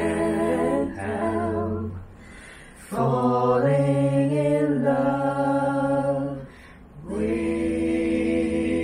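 A cappella vocal harmony: unaccompanied voices singing long, held chords with vibrato, in three phrases separated by short pauses.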